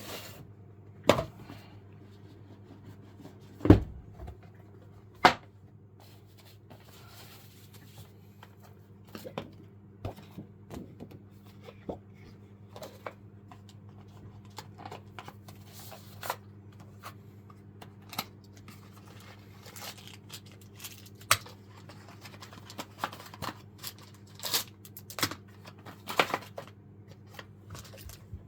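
Cardboard box and packaging of a keyboard being handled and opened: a few sharp knocks, then scattered clicks and rustling of paper and plastic, over a faint steady hum.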